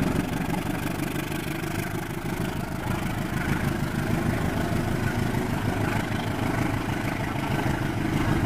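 Diesel locomotive passing close by with its engine running, followed by passenger coaches rolling past on the rails as a steady noise.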